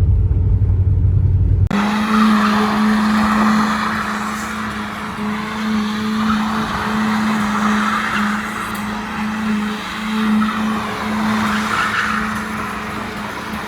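BMW 318i's four-cylinder engine held at steady high revs while the tyres squeal and skid in swells, the welded differential locking both rear wheels together. It starts abruptly about two seconds in, after a short low rumble.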